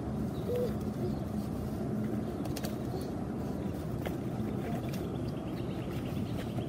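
Steady low outdoor background rumble, with a few faint sharp clicks and a brief faint chirp about half a second in.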